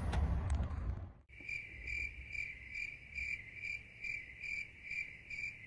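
Low background rumble for about a second, then a sudden cut to crickets chirping: a steady high trill that swells in an even rhythm, about two and a half pulses a second.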